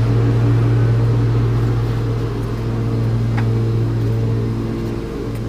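Tractor engine running at a steady idle, with a faint click about three seconds in.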